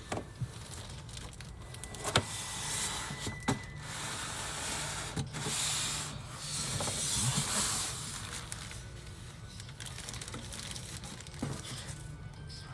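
Hands handling a water heater and its papers: rubbing and rustling with a few sharp clicks and knocks, over a steady low hum.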